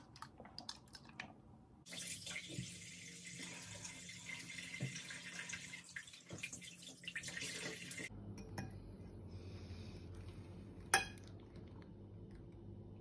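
A bathroom sink tap running for about six seconds, then shut off abruptly. A low steady hum follows, with one sharp click near the end.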